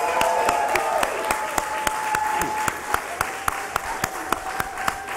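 A group applauding, with sharp single claps close to the microphone at about three or four a second and voices cheering over the top, easing off slightly toward the end.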